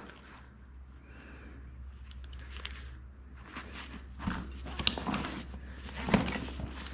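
Tools clicking and clinking as a hand rummages through an open tool bag, with scattered rustles and knocks, over a low steady hum.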